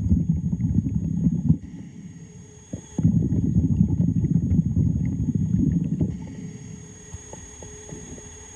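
Underwater recording of a diver's exhaled bubbles from a scuba regulator, a low rumbling burble that comes in bursts of a few seconds with quieter gaps between breaths.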